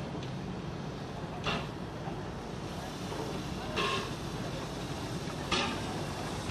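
Small steam tank locomotive moving slowly with its train: a steady low rumble with three sharp hissing exhaust chuffs about two seconds apart.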